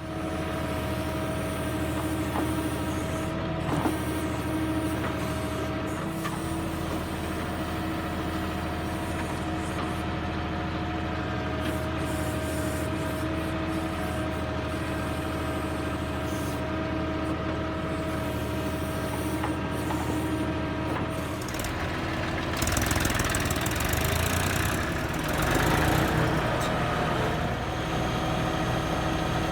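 Diesel tractor engine running steadily while a tractor-mounted backhoe loader works. About 22 seconds in, a louder, rougher stretch of machine noise lasts several seconds, then the steady running returns.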